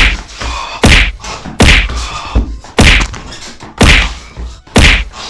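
A slipper whacking again and again in a beating: six sharp smacks, about one a second.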